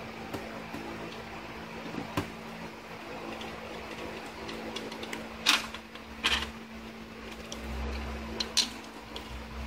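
Metal pump parts knocking and clinking as they are handled and fitted together: a few sharp knocks, the two loudest about midway, over a steady low hum.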